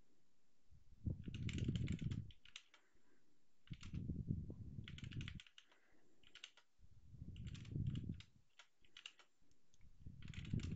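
Computer keyboard typing in about four short bursts of rapid keystrokes, with quiet pauses between them, as terminal commands are entered.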